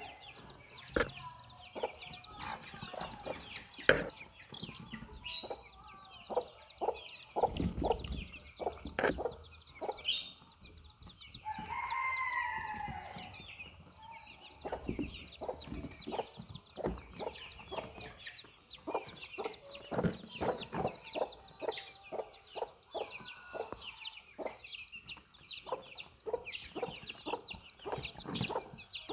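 A flock of baby chicks peeping constantly, with an adult chicken clucking and giving one longer call about twelve seconds in. Many short sharp knocks, such as pecking, are mixed through.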